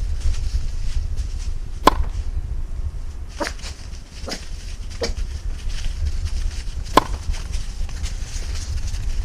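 Five sharp, irregularly spaced clicks or snaps, the loudest about 2 and 7 seconds in, over a steady low rumble of wind on the microphone.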